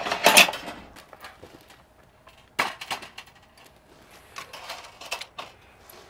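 Wooden bowls, stainless plates and utensils clinking and knocking against a stainless wire basket as they are set in it. There is one sharp clatter just after the start, then scattered lighter knocks and clicks.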